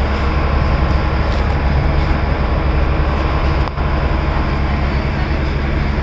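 Tourist launch's engine running steadily, a loud low drone with rushing water and wind noise over it, dipping briefly just past halfway.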